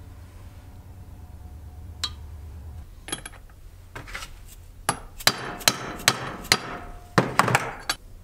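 Soft-faced mallet banging a gear onto its shaft in a Puch ZA50 moped engine case, struck through a rag: about ten hard blows, a few spaced ones and then a quick run of them over the last three seconds.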